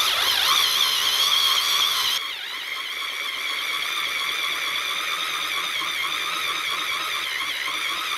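Drill turning a 5/8-inch hole saw over a wheel stud, cutting through the factory staking that holds a brake drum to the hub: a steady high whine of the saw cutting metal, which eases off slightly about two seconds in.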